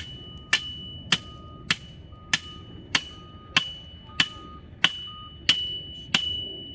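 A hammer striking an iron post, about eleven evenly spaced blows a little under two a second, each leaving a high metallic ring, as the post is driven in.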